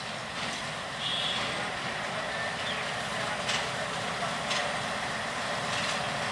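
Diesel locomotive running as it reverses slowly with a coupled van, a steady engine noise that gets louder about a second in. A few sharp clicks sound over it.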